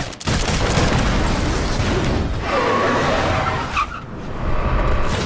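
Action-film soundtrack mix: a loud, dense rumble of crash and vehicle noise with music underneath. It comes right after a burst of gunfire at the very start.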